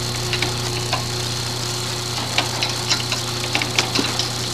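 Scattered light clicks and taps of hand tools on small engine parts, at an irregular pace, over a steady low hum.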